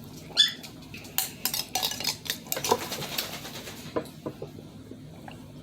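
Spoons clinking and scraping against cereal bowls, a quick run of sharp clicks over a few seconds, with a brief high squeak just after the start.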